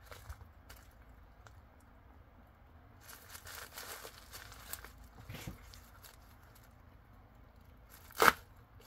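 Paper packaging rustling and crinkling while it is handled, then near the end one short, sharp tear as a paper mailer is ripped open.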